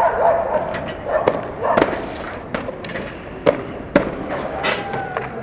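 Skateboard clacking and slapping on hard ground: a string of sharp cracks, irregularly spaced, several in the space of a few seconds.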